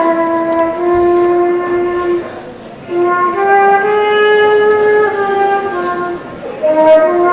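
Solo flute playing a slow melody of long held notes, with a short break for breath a little over two seconds in.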